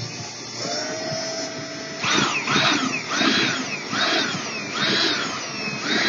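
Power drill driving a screw into a wall. The motor whines steadily at first, then the trigger is pulsed in about six short bursts, each whine rising and falling.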